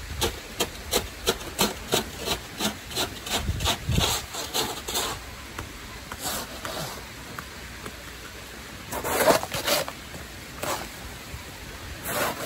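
Snow being scraped by hand: quick rhythmic scraping strokes, about three a second, for the first five seconds, then a few scattered scrapes and a louder flurry of them about nine seconds in and again near the end.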